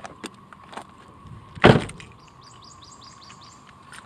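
A car door shutting with a single loud thump about one and a half seconds in, after a few light clicks and knocks. Just after it, a bird sings a quick run of about eight high chirps.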